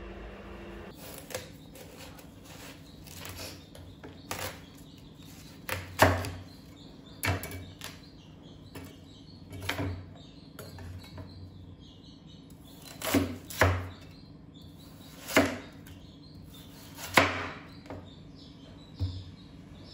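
Knife cutting through watermelon and knocking on a cutting board: about ten sharp chops at irregular intervals.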